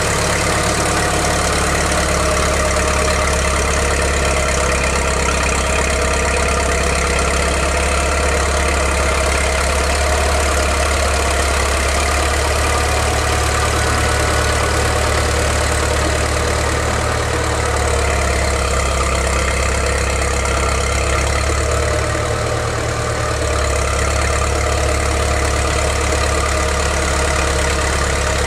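Caterpillar D4C crawler dozer's diesel engine idling steadily, its low note shifting slightly now and then.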